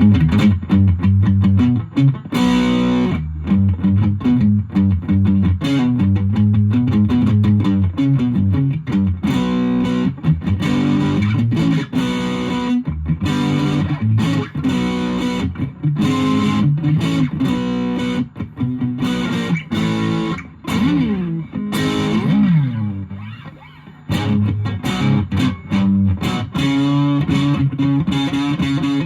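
Electric guitar, a Fender Japan Jazzmaster, played through a 1985 Boss DS-1 distortion pedal into an ELK FSB-45 amp, heard through a smartphone's microphone. It plays a busy run of distorted riffs and single notes, with slides down and back up about three-quarters of the way through, then a brief softer moment before it picks up again.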